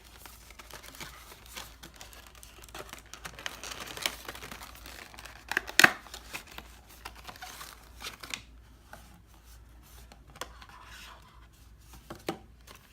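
Flashlight packaging being opened by hand: rustling, tearing and scraping with many small clicks, and one loud sharp click a little before the middle.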